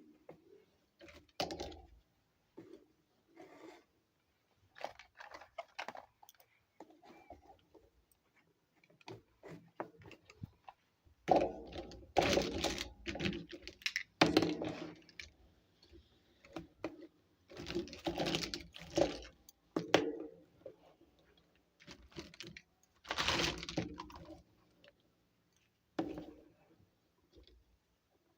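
Small plastic toy kitchen pieces and their packaging being handled: irregular clicks, taps and light rattles, in louder clusters about halfway through and again near the end.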